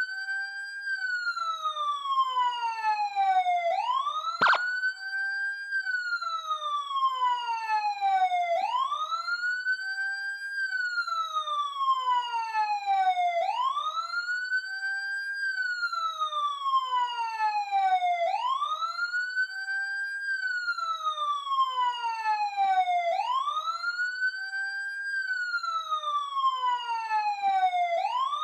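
Police car siren in wail mode: each cycle rises quickly in pitch and then falls slowly, repeating about every five seconds. A single sharp click about four and a half seconds in.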